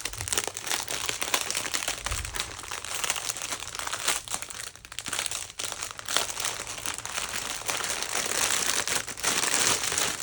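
Plastic packaging from a diamond painting kit crinkling as it is handled, in a dense crackle with a few short pauses.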